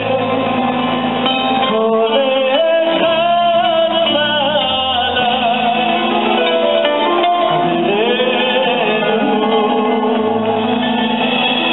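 Live band performance: a man sings a wavering melody into a microphone over guitar and drum accompaniment. The song opens the set as a sung prayer.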